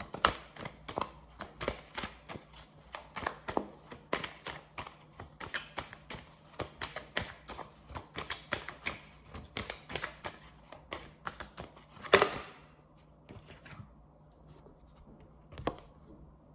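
A deck of tarot cards being shuffled by hand: a long run of quick crisp riffling clicks, ending with a louder slap about twelve seconds in. After that it goes quiet apart from one more soft tap.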